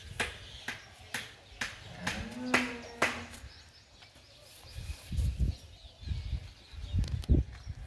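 A calf moos once, about two seconds in, a single drawn-out call. Sharp clicks and knocks fall through the first half, and dull low thumps follow near the end.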